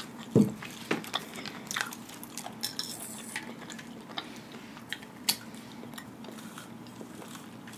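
A person chewing a mouthful of cheesy meatball close to the microphone, with irregular soft mouth clicks and a few light knocks, the sharpest click about five seconds in.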